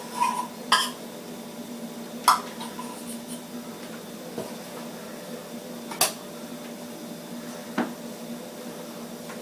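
Metal cans and a pan being handled: about five sharp separate clinks and knocks, the loudest about two seconds in, over a steady low hum.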